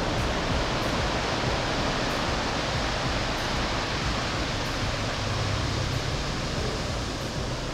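Surf breaking and washing up a pebble beach: a steady rush of waves that eases slightly toward the end.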